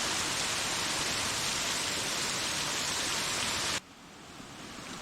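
Rushing water of rain-swollen waterfalls and cascades, a steady loud roar that cuts off abruptly near the end and resumes much quieter, then slowly grows.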